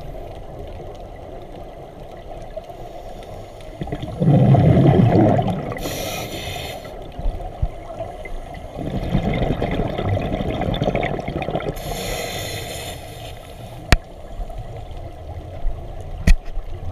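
Scuba regulator breathing heard through an underwater camera housing: a hissing inhale about six seconds in and again near twelve seconds, and exhaled bubbles gurgling. The loudest exhale comes about four seconds in and another at around nine to eleven seconds, over a muffled underwater rumble. There are two sharp clicks near the end.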